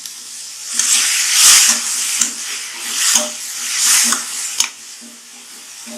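Chopped tomatoes and onions sizzling in hot oil while being stirred, the sizzle swelling and easing in waves, with a few sharp knocks of the stirring utensil against the pan. The sizzle dies down over the last second or so.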